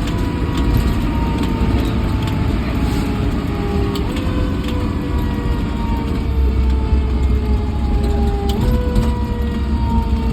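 Fire truck on the move: heavy engine rumble with a pitched whine that slides slowly down and jumps back up twice, about 4 and 8.5 seconds in.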